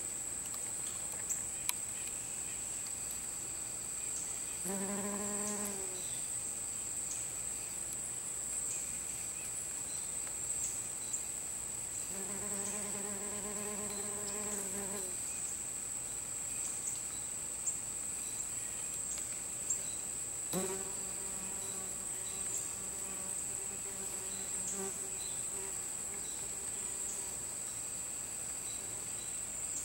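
Wasps buzzing in flight close by, heard three times: a short buzz about five seconds in, a longer one around twelve seconds, and the longest from about twenty-one seconds. Under them runs a steady high-pitched chorus of singing insects.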